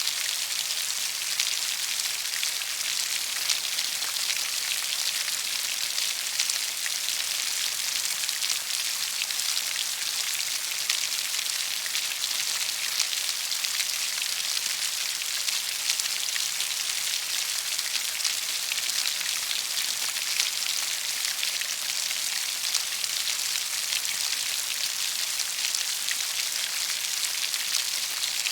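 Steady rainfall, a dense even hiss of many drops with fine pattering ticks.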